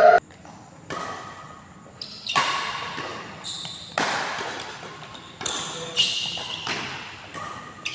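Badminton rackets hitting a shuttlecock in a rally: sharp strikes about every second or so, each ringing out in a large echoing hall.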